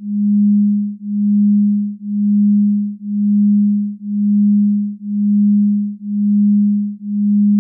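Low electronic sine tone, a single pure pitch a little above 200 Hz, pulsing once a second as it swells and fades.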